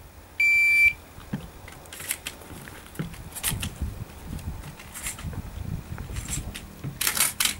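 Electronic shot timer giving its start beep: a single steady, high-pitched tone about half a second long, the signal for the shooter to begin the IPSC course of fire. After it come scattered soft clicks and scuffs, the busiest cluster near the end.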